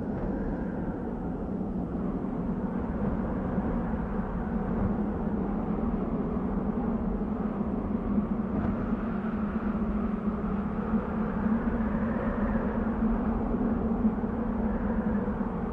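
Desert wind blowing steadily, a low rushing with small gusts and faint whistling tones that slowly rise and fall.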